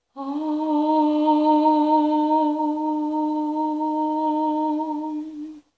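A woman's voice holding one long, steady note, hummed or sung as vocal improvisation, which stops abruptly near the end.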